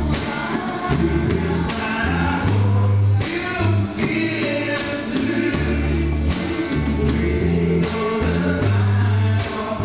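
Live kitchen band playing a song: several men singing together over strummed acoustic guitars, with a bass line and steady percussion.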